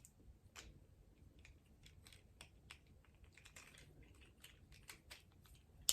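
Faint, irregular clicking of a plastic Ratchet Transformers action figure's joints as they are twisted and repositioned by hand, with one louder click near the end.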